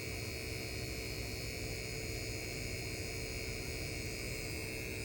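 Cordless, battery-powered refrigerant vacuum pump running steadily with an even hum and a high whine as it evacuates an air-conditioning system's lines.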